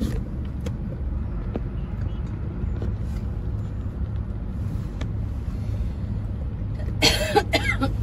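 Steady low rumble of a vehicle engine and road noise in a traffic jam, with a short loud burst of sound about seven seconds in.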